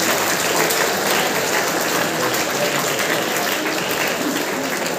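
Crowd of students applauding, a dense, steady clapping.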